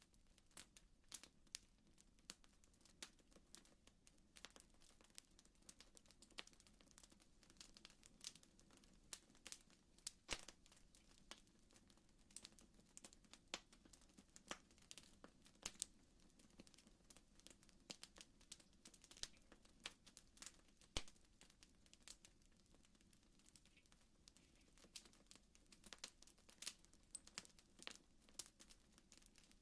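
Faint crackling of a wood fire: irregular sharp pops and snaps, a few louder ones standing out, over a low steady background.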